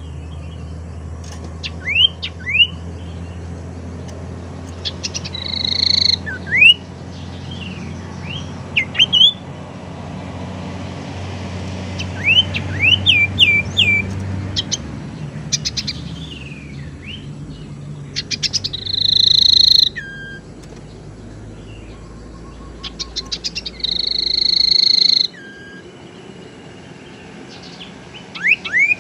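Sirtu (cipoh, an iora) calling: short, sharply rising whistled notes, sometimes in quick runs, alternate with three longer harsh, buzzy calls, each led in by a fast rattle of ticks. A steady low hum runs beneath and stops in two steps, about halfway through and near the end.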